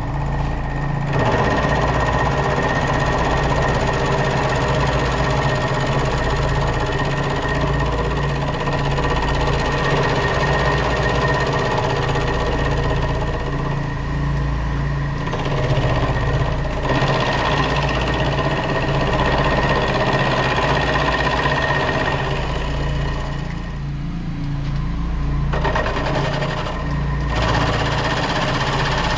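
Milling machine cutting down the face of a cast bandsaw transmission case, starting on the high spots: a steady motor hum with a high whine and the rough noise of the cutter in the metal. The cutting noise drops out briefly about halfway and again a few seconds before the end while the machine keeps running.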